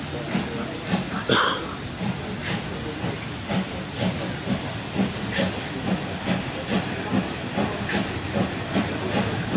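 DRB class 01.10 three-cylinder steam locomotive running under steam: a steady hiss with a fast, regular beat of about three to four pulses a second, and sharper hissing spurts about every second and a half.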